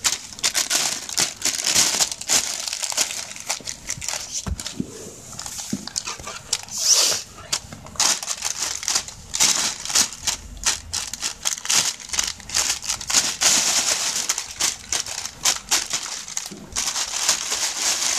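Thin plastic shopping bag crinkling and rustling in irregular bursts as a cat shifts and grabs at a toy inside it.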